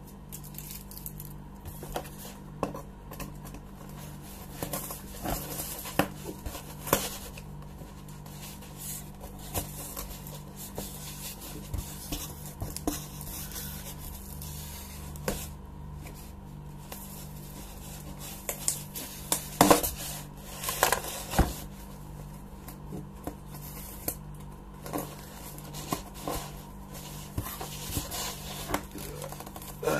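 A knife cutting and scraping at packing tape on a cardboard box, with scattered clicks, scrapes and knocks of the box being handled and a cluster of sharper knocks about two-thirds through. A steady low hum runs underneath.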